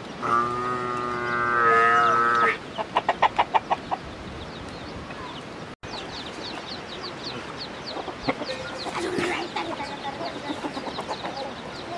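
Farmyard fowl: a long drawn-out call of about two seconds, then a quick run of about seven loud clucks, followed by fast, high chirping that runs on, with a few more clucks about nine seconds in.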